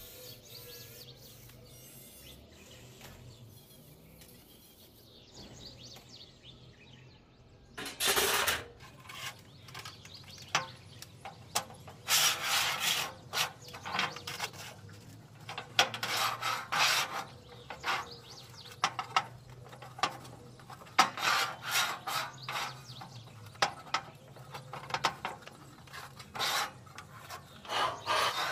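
Hand-tool scraping and rubbing on iron in irregular strokes, like filing or brushing the metal. The strokes begin about eight seconds in, after a quiet stretch with only a faint hum.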